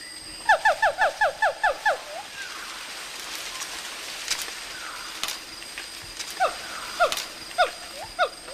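Siamang calling: a quick run of about eight short falling calls, then slower, spaced falling calls near the end.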